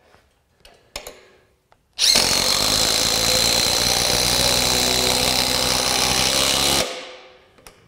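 DeWalt Atomic compact impact driver driving a lag screw into a wooden board, hammering steadily under load for about five seconds before stopping abruptly.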